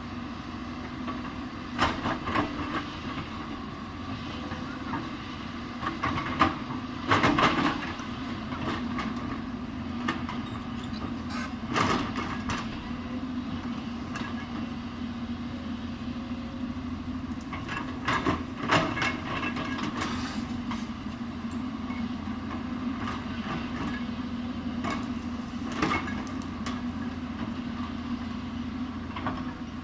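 Hyundai 220 excavator's diesel engine running steadily under load, with intermittent metallic clanks and scraping from the bucket working the hillside, the loudest around a quarter of the way in.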